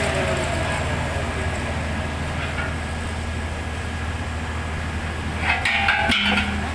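Heavy diesel engine of machinery running with a steady low hum, its pitch falling right at the start. Near the end a short, louder, higher-pitched sound rises over the engine for about a second.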